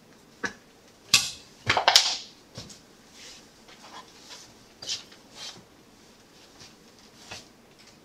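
Whiteboard marker writing in short scratchy strokes, with a cluster of loud knocks and rustles between about one and two seconds in.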